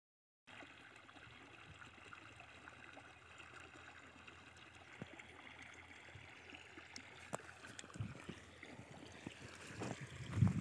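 Faint, steady hiss of irrigation water trickling across a flooded, ploughed field. Wind rumbles on the microphone near the end.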